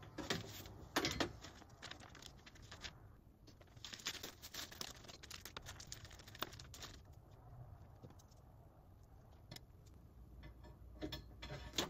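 Handling noise from assembling a steel climbing tree stand: scattered knocks and clicks of the metal frame and cables, with paper rustling as the instruction sheets are moved. A few sharp knocks come in the first second or so and again near the end, with a longer rustling stretch around the middle.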